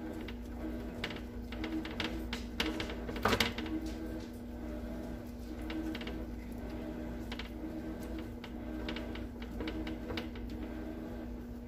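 Silicone basting brush dabbing barbecue sauce onto breaded chicken wings on a wire rack: irregular soft taps and clicks, with one louder knock a little over three seconds in. A steady low hum runs underneath.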